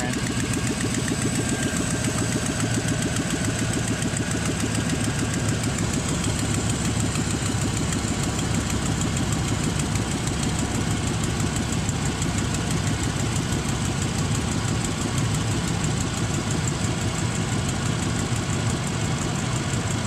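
Car engine idling steadily, with the AC switched on high. Refrigerant is being fed in at the low side, and the AC compressor has not yet kicked on because there is not yet enough pressure in the system.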